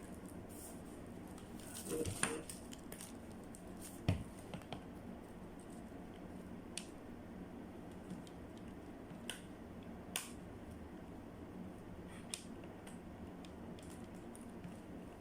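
Handling of cables and plugs on a small sound-card mixer: scattered light clicks and knocks, a handful over several seconds, over a faint steady hiss and hum.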